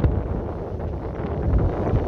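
Wind buffeting the microphone, a rough rumble at sea, with a faint rush of water beneath it.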